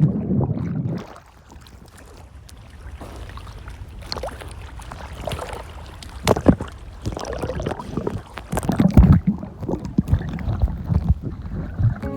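Water splashing and sloshing in irregular bursts around swimmers in the sea.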